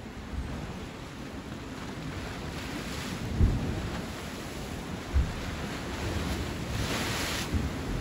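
Sea surf washing on the shore, with wind buffeting the microphone in low rumbles and a few sudden thumps; a wave rushes in with a louder hiss near the end.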